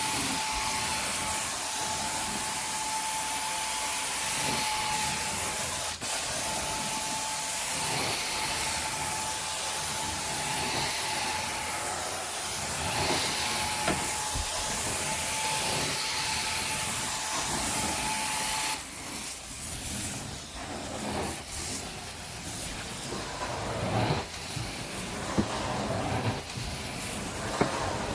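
Carpet-cleaning suction machine running with a steady whistling hiss that swells in slow strokes every two to three seconds, then shuts off suddenly about two-thirds of the way through, leaving scattered rubbing and knocks.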